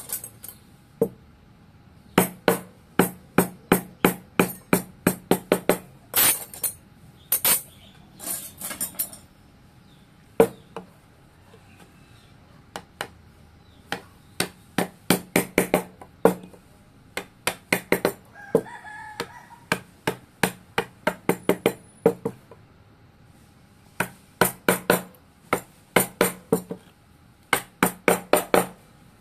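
Wooden mallet striking a steel carving chisel into wood, in runs of quick sharp knocks with short pauses between them. A rooster crows briefly about two-thirds of the way through.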